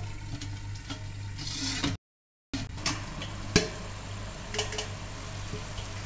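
Onion-tomato masala simmering and sizzling in a kadhai under an upturned steel bowl used as a lid, with a few sharp metallic clinks of steel on the pan. The sound cuts out for half a second about two seconds in.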